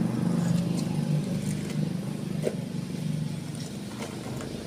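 An engine running steadily with a low, even hum, slowly getting quieter.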